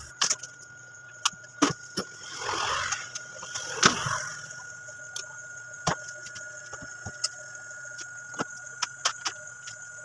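Scattered clicks and knocks of hands handling wiring, tools and equipment on a wooden workbench, with two short scraping rustles in the first half, over a faint steady high tone.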